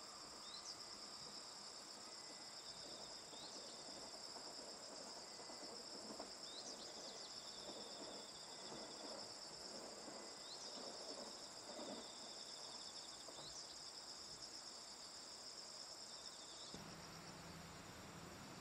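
Faint, steady high-pitched chorus of insects trilling, with a short rising chirp every few seconds. The chorus changes abruptly near the end.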